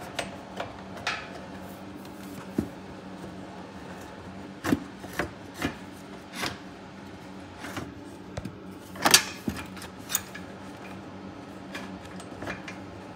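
Scattered clicks, knocks and rubbing of hands working metal parts and tools in a car's engine bay, the loudest knock about nine seconds in. A steady low hum runs underneath.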